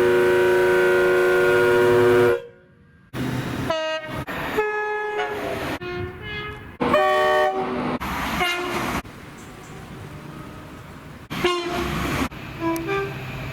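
A series of British train horns cut one after another: a long, loud steady horn blast that stops abruptly a little over two seconds in, then a run of short two-tone horn blasts from different trains, each clip cut off sharply.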